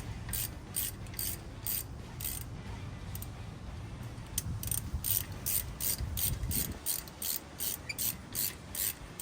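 Small ratchet wrench clicking as it runs in brake caliper bolts, at about three clicks a second, with a pause of a second or two just before the middle.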